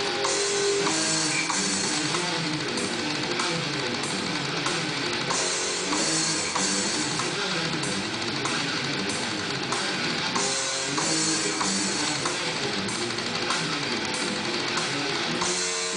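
Music with guitar and a drum kit playing a steady beat, with cymbals marking the rhythm.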